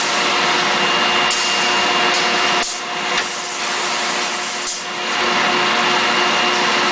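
Steady industrial machine noise: a dense hiss with a steady whine running through it, easing off for a couple of seconds midway.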